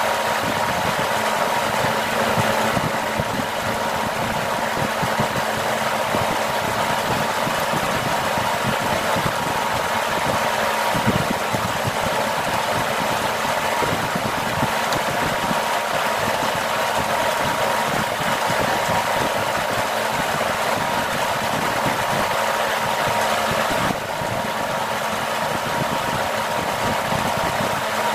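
A motor running steadily, a continuous drone with a low, uneven rattle under a faint steady hum.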